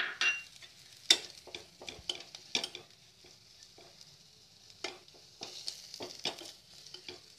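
Metal spatula scraping and knocking against a kadai in irregular strokes as sliced onions are stirred, over a light sizzle of the onions frying in oil. The onions are browning toward caramelized.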